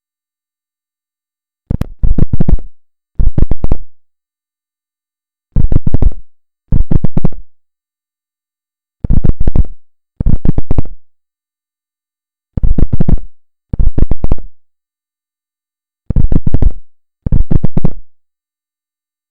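A refrigerator's strange electronic signal, played back from a recording: five pairs of short buzzing beeps, a new pair about every three and a half seconds, with dead silence between. The uploader takes it for Morse code hidden in the buzzing noise.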